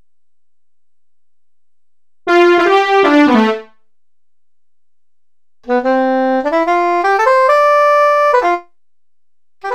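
Sampled saxophone and brass patches from the SGM-V2.01 soundfont, played as single notes on a software keyboard. There is a quick run of notes stepping downward, a pause, then a slower run of notes climbing upward, and one short note at the very end.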